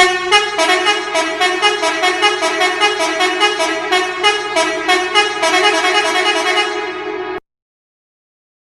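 Musical car horn playing a quick melody of short notes, about three a second, over a steady lower held tone. It cuts off abruptly about seven seconds in.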